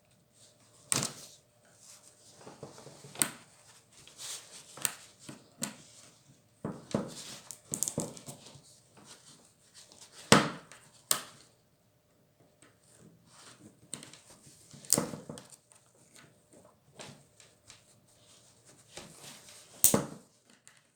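Screwdriver working at a small spring among the plastic and metal parts of a BSA Comet Evo air rifle: irregular scraping and fiddling, broken by sharp clicks and taps every second or few, the loudest about a second in, around ten seconds in, at fifteen seconds and near the end.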